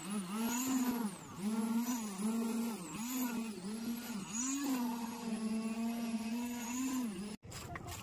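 Concrete needle vibrator running in wet slab concrete: a high, steady hum whose pitch dips and recovers over and over, about twice a second, as the poker works the concrete. It cuts off suddenly near the end, and faint scraping follows.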